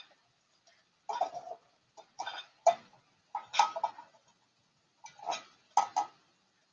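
Garbled, choppy fragments of a woman's voice through a video-call connection, breaking up into several short bursts with silent gaps between them.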